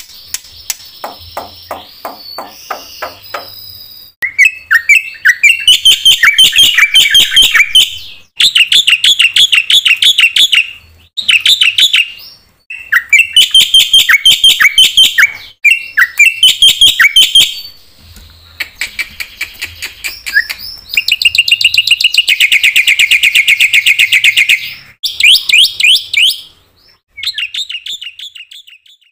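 Black-winged myna (jalak putih) singing loudly in bursts of fast, repeated chirping phrases a few seconds long, with short pauses between them. This is the myna's full song with mimicked 'isian' fill-ins, used as a lure sound to set other starlings singing.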